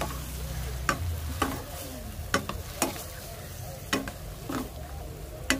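Spatula stirring raw squid with sautéed aromatics in a hot pan, knocking and scraping against the pan about seven times over a steady frying sizzle.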